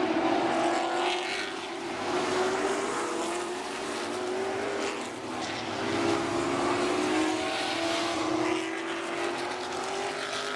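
A field of Super Late Model stock cars racing on a short paved oval, their V8 engines running hard. The engine pitch rises and falls in slow glides as the pack goes down the straights and through the turns.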